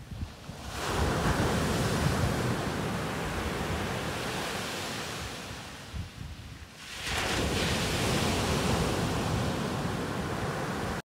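Small ocean waves breaking and washing up the shore in two surges: one builds about a second in and eases away around six seconds, the next comes in about seven seconds in. The sound cuts off suddenly at the end.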